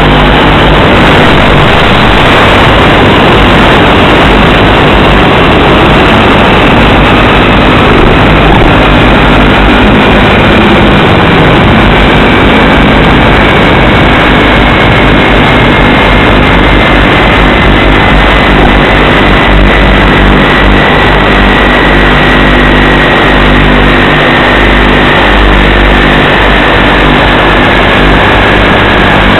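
Model airplane's motor and propeller heard from on board the plane: a loud, steady, noisy drone with a faint whine slowly falling in pitch.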